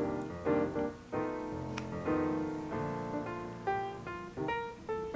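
Piano music, with single notes and chords struck one after another, each fading before the next.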